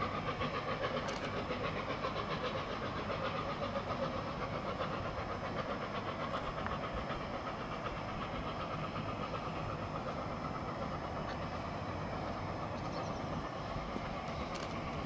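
Steam-hauled special train, led by LNER A4 Pacific 60009 Union of South Africa, running past with a steady rumble and a fine, rapid rhythmic clatter of wheels on the rails.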